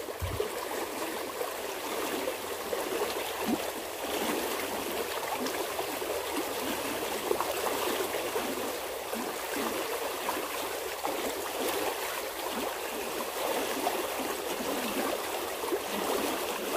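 Small irrigation ditch of fast-flowing water rushing steadily over shallow riffles.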